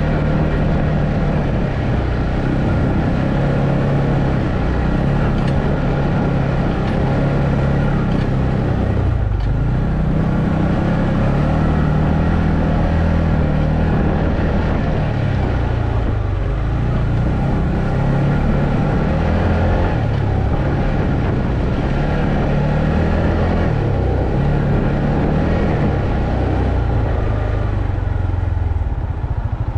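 ATV engine running under way, its pitch dipping and climbing again twice as the throttle or gear changes, then settling to a lower, steadier note near the end.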